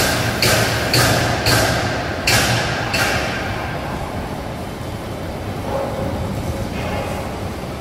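Factory-floor noise in a steel fabrication hall: a run of sharp metal bangs about half a second apart, each ringing briefly, dying away after about three seconds into a steady machinery rumble.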